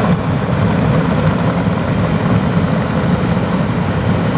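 Steady low rumble of a car being driven, heard from inside its cabin: road and engine noise with no distinct events.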